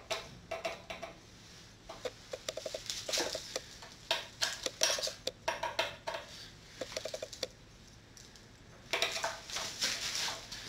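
Small metal measuring tool clicking and scraping against the workbench and the end vise's hardware while the height of the vise cavity is measured: a scatter of light clicks with several short runs of quick ticks.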